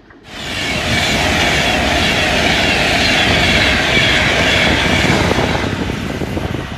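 Passenger train passing close at speed on the main line: a loud rush of wheel and air noise with some clickety-clack. It starts suddenly and eases off near the end.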